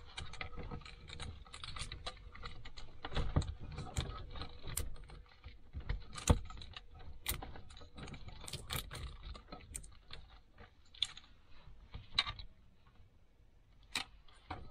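Hands working at a taped car wiring bundle and tools: irregular clicks, light rattles and rustling, with a sharper knock about six seconds in.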